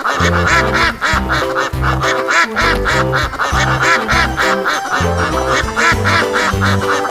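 Instrumental children's nursery-rhyme backing music with a steady bouncy bass beat, about two notes a second, under a bright lead melody.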